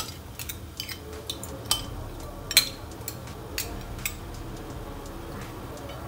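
Metal ladle clinking and scraping against a ceramic bowl as something is stirred and dissolved in it: a string of sharp clinks about twice a second, thinning out after about four seconds.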